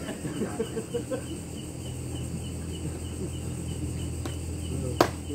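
Night crickets chirping in a steady rhythm of about four short chirps a second over a low steady hum, with faint voices in the first second. A single sharp knock about five seconds in is the loudest sound.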